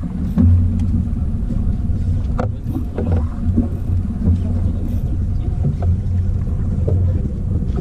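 Fishing boat's engine running, a steady low drone, with a few small knocks on top.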